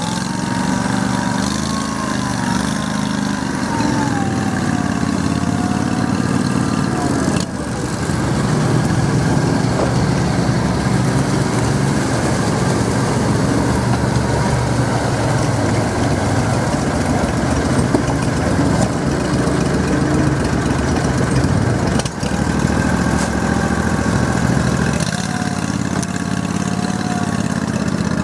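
Argo amphibious ATV engines running and revving, with a whine that rises and falls in pitch. The sound changes abruptly a few times.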